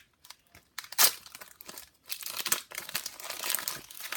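Trading-card pack wrapper being crinkled and torn open: a sharp, loud crackle about a second in, then about two seconds of steady crinkling.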